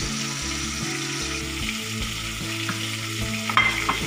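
Background music of low, sustained notes changing about every half second over a steady hiss, with a short clatter about three and a half seconds in.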